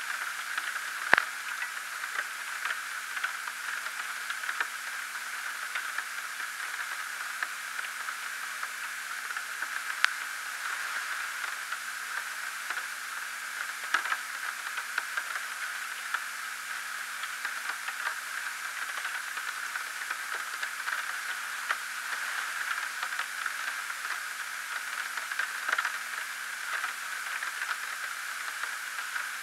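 Steady analog static: an even hiss over a faint low hum, with scattered crackles. A sharp click comes about a second in, and louder ticks around ten and fourteen seconds in.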